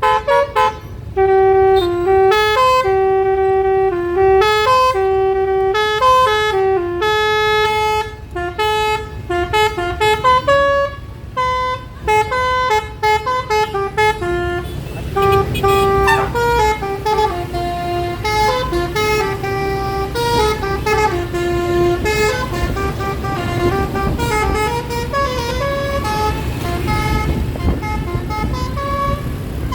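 A tour bus's telolet "basuri" musical air horn playing a tune of short stepped notes, one after another without a break. Road noise rises under it in the second half.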